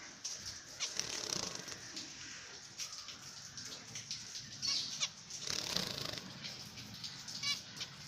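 Zebra finches shaking and fluffing their damp feathers after a bath, with irregular bursts of feather rustling and wing flutters. A short rapid trill comes near the end.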